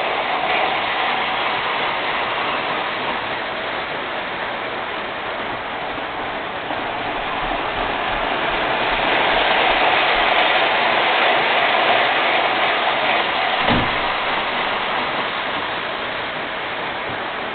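MTH R40 model subway train running on the layout's track, a steady rolling noise that swells near the middle and eases off again. There is a brief low thump a little before the end.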